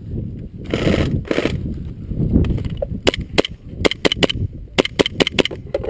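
Airsoft gun firing: about a dozen sharp shots in quick, uneven succession over the last three seconds, after a couple of brief rustling bursts.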